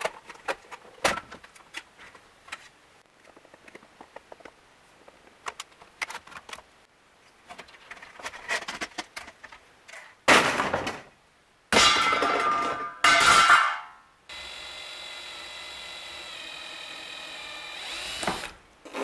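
Scattered clicks and knocks of parts being handled, then a power drill running in three short loud bursts and one steady run of about four seconds.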